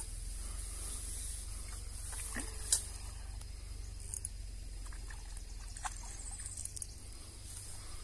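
Quiet lakeside ambience: a steady high hiss and a low rumble, broken by a few sharp clicks, the loudest nearly three seconds in.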